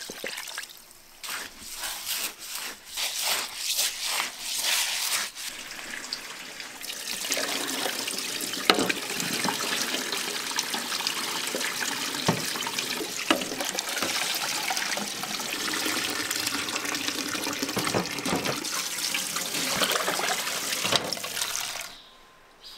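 Water running from a tap and splashing into a sink: in short spurts at first, then a steady stream from about seven seconds in, with a few sharp knocks, stopping just before the end.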